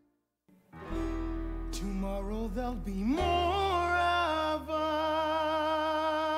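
Music: after a brief silence, a solo voice sings a slow line over a steady low drone, holding long notes. The sung words end 'more of us'.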